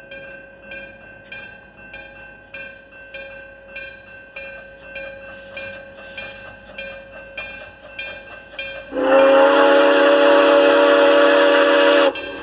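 Steam locomotive's bell ringing steadily, a little under two strokes a second, as the engine approaches, then a long steam whistle blast of about three seconds starting about nine seconds in.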